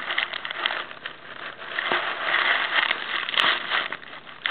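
Rustling and scraping handling noise on the camera microphone, with several short clicks, as the camera is set in place.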